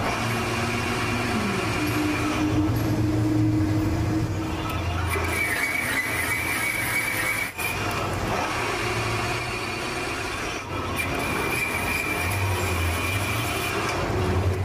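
Metal lathe running with a cast-iron meat grinder body turning in its chuck: a steady low hum with a high whine over it. There is a short click about halfway through.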